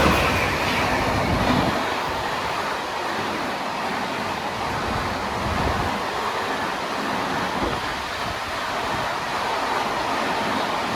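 A train running past on the track: the steady noise of coaches rolling along the rails, a little louder in the first second or two and then even.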